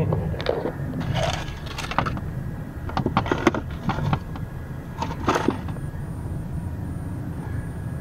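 Vehicle engine idling with a steady low hum, with scattered knocks and clicks over it. A faint, high, broken beeping comes in about halfway through.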